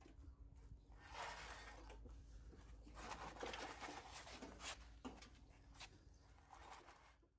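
Faint handling noise from a bench drill press's head being turned and seated on its steel column by gloved hands: two stretches of scraping with a few light metal knocks near the middle.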